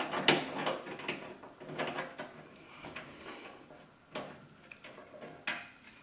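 Screws being worked out of an HP Pavilion Power desktop's steel case with a T15 screwdriver and fingers: a run of small metallic clicks and scrapes, busiest in the first two seconds, then a few separate clicks.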